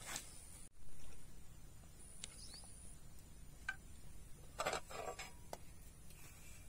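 A frying pan handled on a small campfire: a short clatter about four and a half seconds in, among a few faint ticks.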